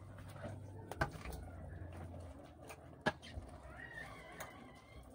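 Quiet stirring of a pot of simmering coconut-milk stew over a wood fire, with a metal spoon clicking against the pot twice, about one and three seconds in. A faint wavering animal call comes near the end.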